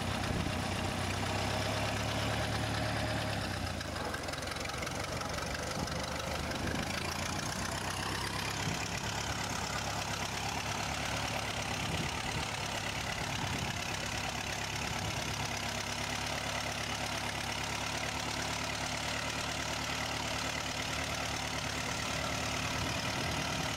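Model T Ford four-cylinder engine on a homemade tractor running steadily under load, pulling a walking plow through the soil.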